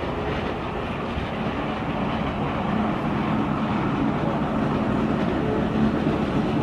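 Battery-powered Kyoto City Tram N-type streetcar approaching round a curve: steady rail-running noise with a low hum, growing gradually louder.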